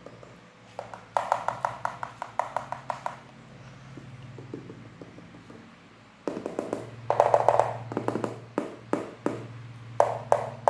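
Mechanical keyboard being typed on: fast runs of keystroke clicks about a second in and again from about six seconds in, over a steady low hum.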